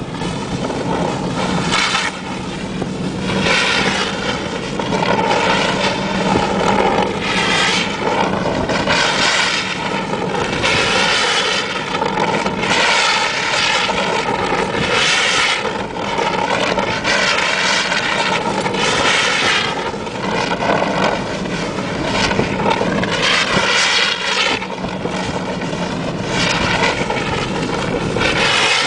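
Mitsubishi L200 pickup's engine running steadily as it drives on snow, with a rushing hiss that swells and fades every second or two.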